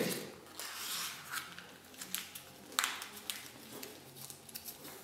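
Soft rustling of a paper coin roll of 10 Rappen coins being worked open by hand, with a few light clicks of the coins, the sharpest about three seconds in.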